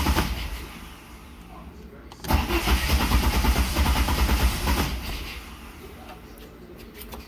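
An engine being cranked without catching: a first cranking attempt ends just after the start, and a second runs for about two and a half seconds from about two seconds in, then dies away. The failure to start is with a 1.0 mm, 50° jet fitted.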